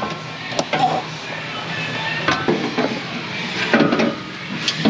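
Metal parts and tools clinking and knocking in a diesel engine bay as a turbo pipe is worked into place: a handful of sharp clanks, a few of them ringing briefly, with background music.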